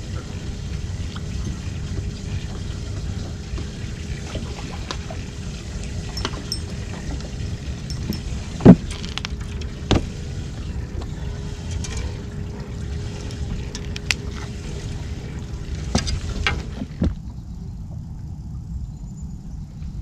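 Low rumble with a faint steady hum, broken by scattered knocks and thumps on a fishing boat as a crappie is brought aboard and handled. The loudest single knock comes a little before halfway, with a few more clustered later on.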